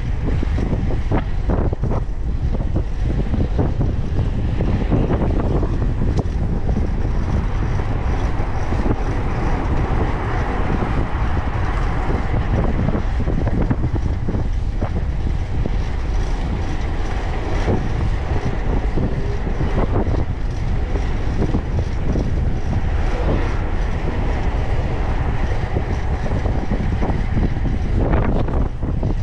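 Wind rushing and buffeting over the microphone of a camera on a fixed-gear bicycle ridden through city streets, with tyre-on-asphalt road noise, passing motor traffic and occasional knocks.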